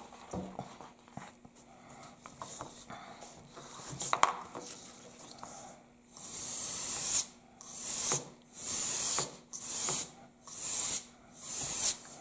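Aerosol can spraying: a hiss of about a second, then five shorter hissing bursts in a row, after a few seconds of light handling rustles.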